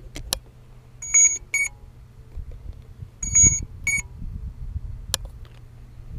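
Electronic beeping from the drone's on-board electronics: two pairs of loud, high beeps about two seconds apart, with a low steady hum underneath and a couple of sharp clicks.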